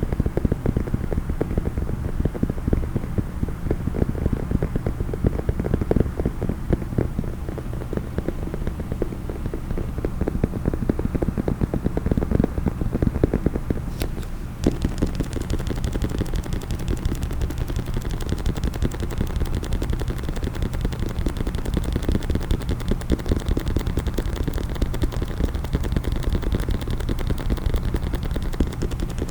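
Rapid, continuous tapping on a hard case, close to the microphone, with many taps a second. About halfway through there is one sharp click, and after it the tapping sounds brighter and crisper.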